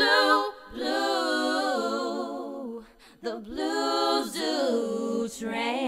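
A woman singing long held notes with little or no instrumental accompaniment, in about three drawn-out phrases with a wavering pitch.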